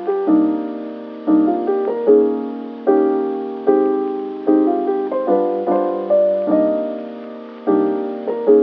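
Background piano music: chords struck about once a second, each left to fade.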